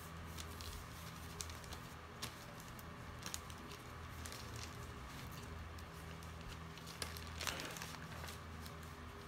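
Paper and a plastic sleeve rustling and crinkling as a passport is slid out of a cut-open visa envelope. Scattered light clicks run through it, with a louder rustle about seven and a half seconds in, over a steady low hum.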